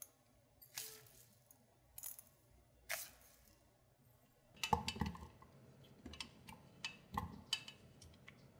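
Kitchen handling sounds: three short swishing strokes, then a cluster of light knocks and clinks against a stainless-steel pot a little past the middle, followed by scattered sharp clicks, as daikon radish ribbons and kelp are handled in the pot.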